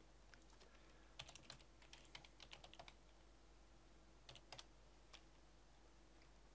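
Faint computer keyboard typing: a quick run of keystrokes about a second in, then a couple more and a single last key press near the end.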